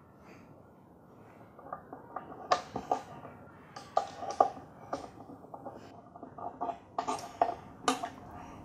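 Irregular small clicks and knocks of a violin being strung by hand, as the tailpiece and its strings are handled and fitted against the instrument. The knocks grow more frequent about two and a half seconds in, with a few louder ones.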